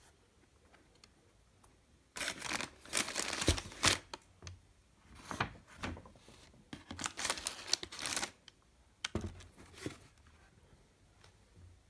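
Tissue paper crinkling as it is handled inside a cardboard shoebox. It comes in several irregular bursts of rustling, starting about two seconds in.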